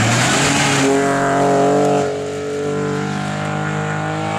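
BMW E36 rally car driving hard past on a gravel stage: a rush of tyre-on-gravel noise in the first second, then a steady engine note that drops in level about two seconds in as the car moves away.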